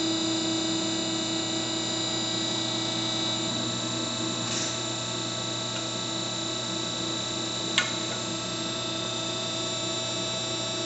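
3C CR138RIMW CNC angle roll machine running steadily, its drive and rolls working a 1-inch steel round tube into an arch. One of its tones turns to a pulsing about three and a half seconds in, and a single sharp click comes near the end.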